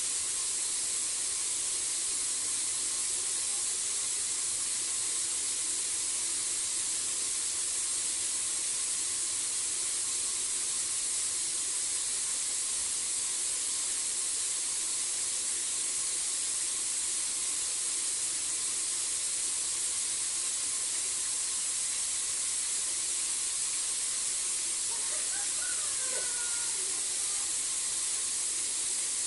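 Steady high-pitched hiss of night-time outdoor ambience, with a faint steady tone underneath. Near the end, a few faint gliding whistles.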